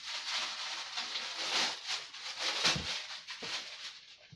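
Rustling and crinkling of plastic wrapping and cardboard packaging as parts are pulled out of a box, a continuous uneven rustle that fades near the end.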